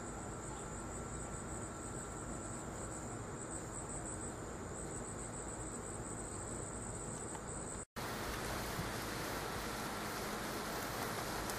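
Insects chirring steadily in a high, finely pulsing band over a constant low background noise. About eight seconds in, this cuts off abruptly and is replaced by the dense, even hiss of rain falling.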